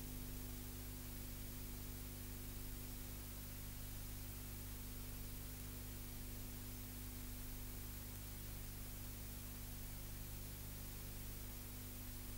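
Faint steady hiss with a low electrical hum and nothing else: the empty soundtrack of an old broadcast recording of a silent film.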